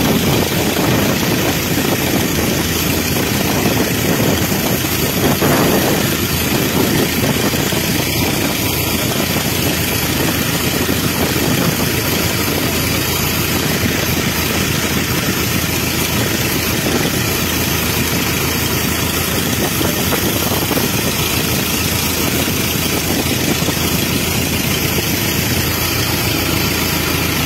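A boat engine running steadily and loudly, mixed with rushing water.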